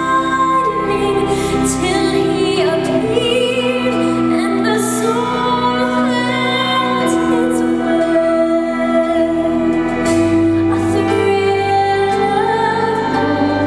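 A woman singing through a microphone with orchestral accompaniment, holding long notes with vibrato over sustained instrumental chords.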